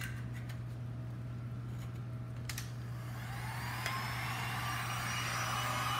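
A few handling clicks, then a heat gun switched on about halfway through: its fan spins up with a rising whine into a steady blowing rush.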